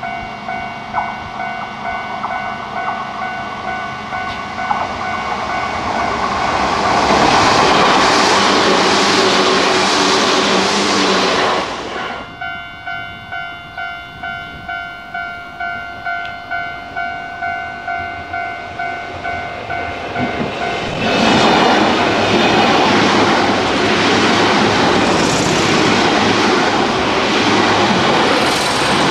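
Keio Inokashira Line 3000-series electric trains passing close by twice, each time a loud rush of wheels and motors that builds as the train nears. Behind them a level-crossing warning bell dings steadily, about one and a half strikes a second.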